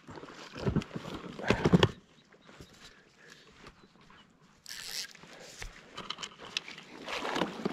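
A hooked rainbow trout splashing and thrashing at the water's surface as it is played in close to a float tube, heard as irregular small splashes and clicks in the second half. Two louder, brief handling noises come about one and two seconds in.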